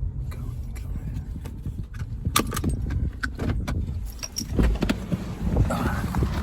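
Car interior noise while driving: a steady low engine and road rumble, with a run of sharp clicks and rattles for a couple of seconds in the middle.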